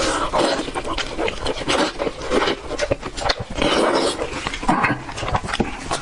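Close-miked wet chewing, sucking and smacking while eating a sheep's head in sauce: irregular squelching mouthfuls punctuated by sharp clicks.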